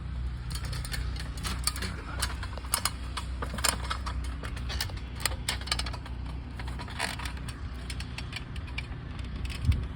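Irregular clicks, creaks and scrapes of someone climbing up onto an asphalt-shingle roof, over a low steady hum.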